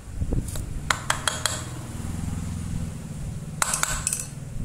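Metal parts of an electric hand drill's gear head clinking and tapping as they are handled and fitted back together. There are a few sharp clinks about a second in and another quick cluster near the end, over soft handling noise.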